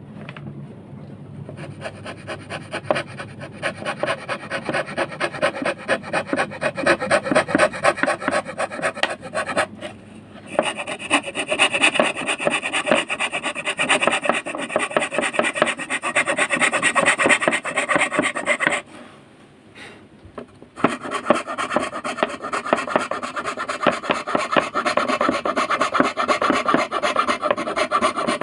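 Hand tool rasping through wood in rapid, steady back-and-forth strokes, in three long runs with a short break and then a two-second pause in between.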